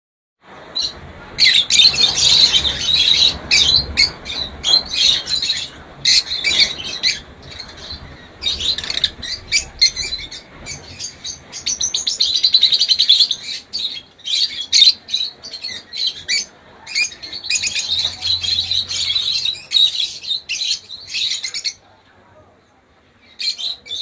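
A flock of caged lovebirds chirping and chattering, with many short, high calls overlapping almost without a break. They die down near the end.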